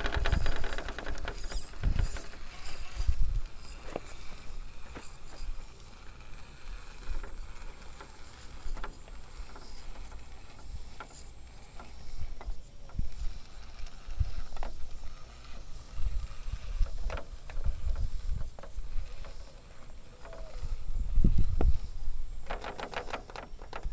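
Axial SCX10.3 RC rock crawler picking its way over rocks: scattered clicks, clunks and scrapes of tires and chassis on rock, with a few heavier low thuds, the loudest near the end.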